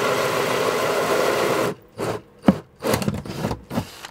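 Cordless drill/driver driving a screw into plywood: a steady run that stops about two seconds in, then a few short bursts as the screw is snugged down.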